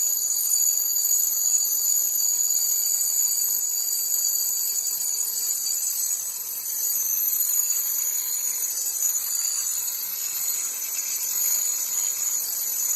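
DeWalt variable-speed angle grinder with a diamond grinding disc running steadily with a high-pitched whine, grinding down the sagging front edge of a concrete step.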